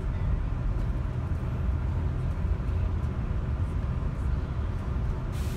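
Steady low rumble of a moving vehicle heard from inside its cabin. A faint hiss joins it about five seconds in.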